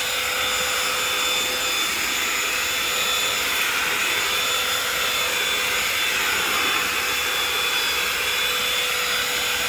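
Holife cordless handheld vacuum cleaner running steadily with a strong suction noise, its motor whine and airflow rising and falling slightly as the nozzle is worked back and forth over cat litter on the floor.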